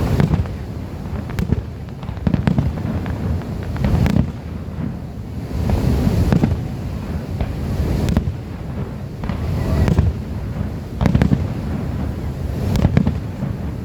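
Fireworks display: aerial shells bursting with sharp bangs every second or two, some followed by crackling, over a steady low rumble.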